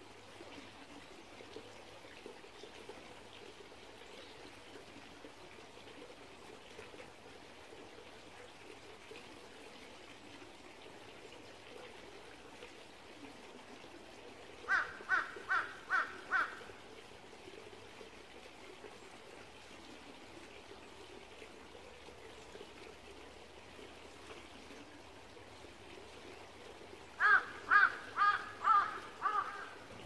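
A small valley stream trickling steadily, with a bird calling in two quick runs of repeated calls, about five a little past halfway and six or seven near the end, louder than the water.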